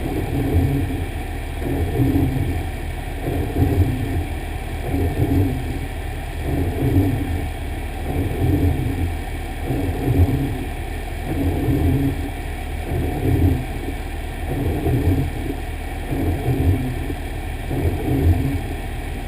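Fire engine running, heard from inside the cab: a steady low rumble that swells and eases roughly once a second.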